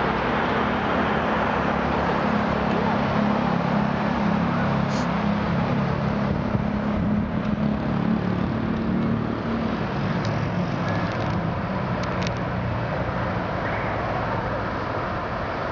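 Street traffic heard from high above: a steady wash of road noise, with a low vehicle engine hum that is strongest for the first ten seconds or so and then fades back into the general traffic.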